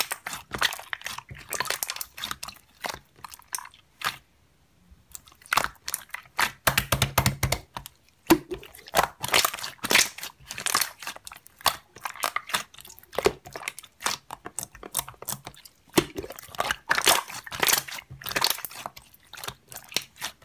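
Slime being squeezed and pressed by hand, a dense run of crackling clicks and small pops, with a short pause about four seconds in.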